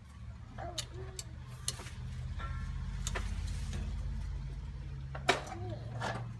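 Scattered light metallic clicks and ticks of an Allen key working the small clamp screw on a throttle-control cable at a Holley carburetor's linkage, with a sharper click about five seconds in, over a low steady hum.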